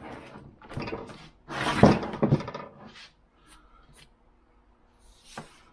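A heavy, rusty Wilton bullet vise body being turned over and shifted on a workbench: a run of scrapes and clunks of iron on the bench, loudest about two seconds in, with a few lighter knocks after.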